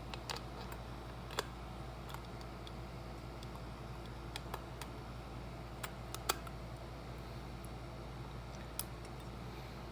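Scattered sharp small clicks and taps, about a dozen at uneven intervals, as an H3 LED bulb is fitted back into a car's fog light housing, over a steady low hum.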